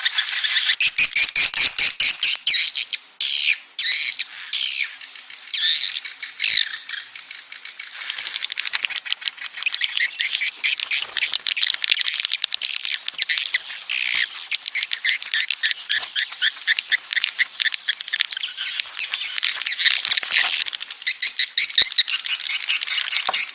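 Swiftlets twittering: a dense chatter of rapid clicking chirps and short gliding whistles, with a brief lull about seven seconds in. These are swiftlet breeding calls, the kind played as a lure recording in swiftlet nest houses.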